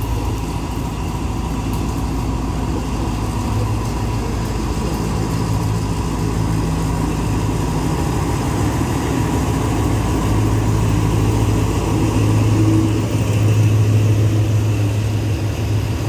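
Diesel locomotive hauling a passenger train into the station, its engine running with a steady low drone that grows louder as it comes alongside.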